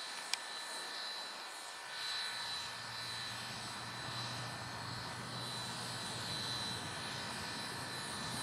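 A single sharp metallic clank just after the start as the switch stand is worked by hand, then from about two seconds in a steady low engine drone with a faint high whine above it.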